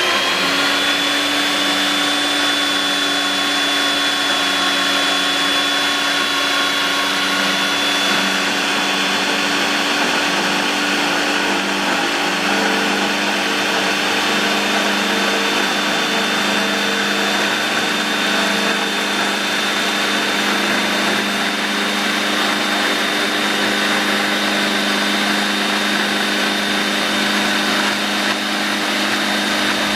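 Paldo BS-150 portable band saw running steadily under its 2000 W inverter motor and reduction gearbox. It gives an even whine with a high tone over a lower hum, holding constant throughout.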